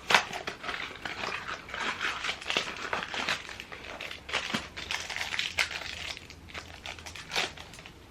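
Crinkling and rustling of a mystery pin box's packaging being torn open and handled, with sharp crackles and snaps, the loudest just after the start, dying down near the end.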